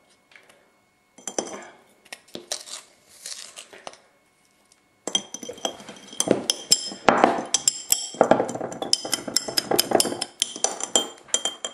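A metal spoon stirring baking soda into water in a glass Erlenmeyer flask, clinking against the glass, which rings. A few scattered clinks come first, then fast, continuous stirring starts about five seconds in.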